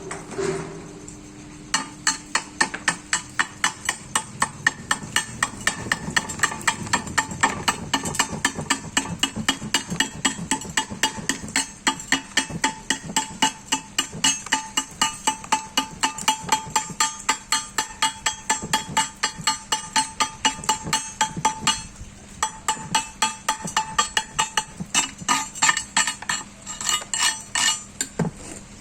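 A chipping hammer knocking slag off a steel weld: rapid, even strikes of about three or four a second, each with a short metallic ring, broken by two brief pauses near the end.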